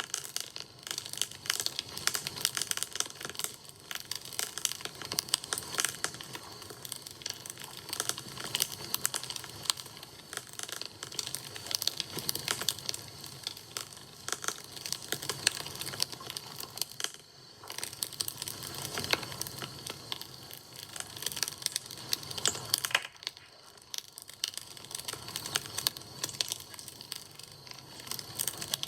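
Wood campfire crackling: a dense, irregular run of small snaps and pops, easing briefly twice about two-thirds of the way through.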